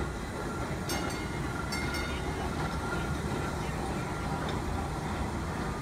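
Rock Region Metro streetcar rolling past on its street track: a steady rumble, with two brief clatters about one and two seconds in.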